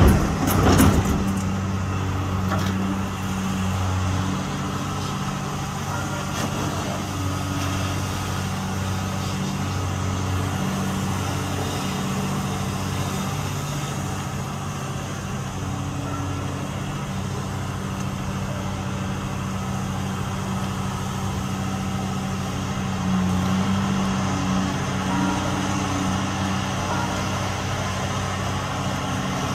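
Tracked dredging excavator's diesel engine running steadily as it works, with a cluster of sharp knocks in the first second as the bucket empties spoil into the hopper barge.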